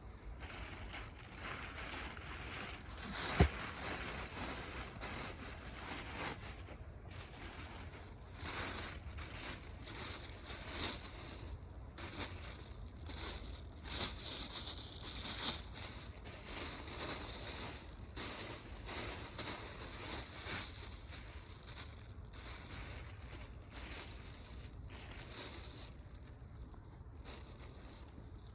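Dry twigs and kindling crackling, snapping and crunching in irregular bursts, with one sharp snap about three seconds in.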